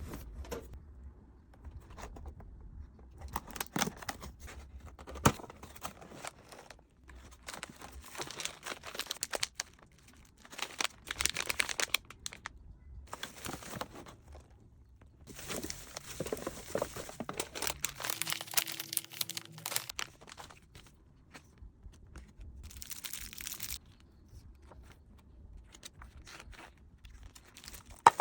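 Packaging being opened by hand: paper and plastic torn and crinkled in irregular bursts, with a few sharp clicks and knocks, the loudest about five seconds in.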